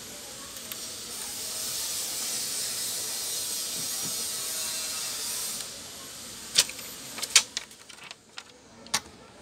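Black adhesive plastic insulating sheet being peeled off a laptop's motherboard: a steady tearing hiss for about five seconds that stops abruptly, then a few sharp crinkles and snaps as the loosened sheet is handled.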